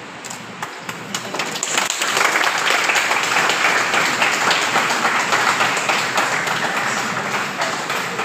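A group of people applauding: a few scattered claps at first, then full clapping from about two seconds in, thinning out near the end.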